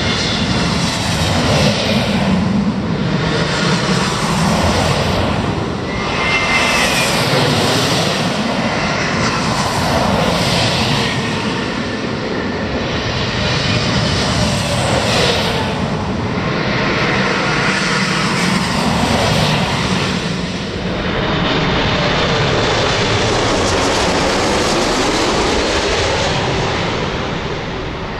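Large jet airliners passing low overhead on approach or departure. The jet engine noise swells and fades several times, with whines that bend in pitch as each aircraft goes by.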